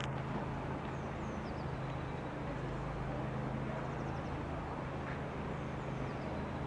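Outdoor city ambience: a steady low rumble of distant traffic, with a few faint high chirps.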